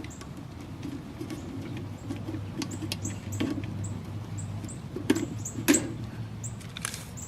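Scratching and light clicks of a wooden dowel being slid and adjusted against a bird feeder by hand, with two sharper knocks about five and six seconds in.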